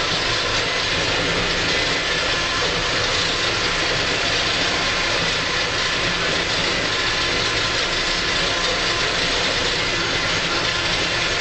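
Valtra 6800 TwinTrac tractor's diesel engine running steadily while a 3-metre pasture topper cuts grass, heard from the cab. A constant engine hum with a few steady whining tones over a dense hiss, unchanging throughout.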